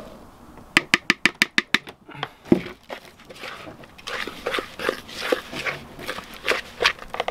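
A plastic bowl is knocked about eight times in quick succession, roughly seven a second, as the last flour is shaken out of it. A spatula then scrapes and clacks in a plastic mixing bowl, stirring flour into grated courgette.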